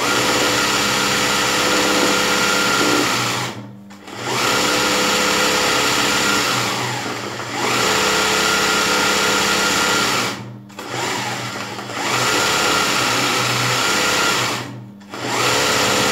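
A zigzag sewing machine runs fast, satin-stitching (mrma) small blocks of thread at a fixed zigzag width for machine embroidery. It runs in spurts, stopping briefly three times, about 4, 11 and 15 seconds in.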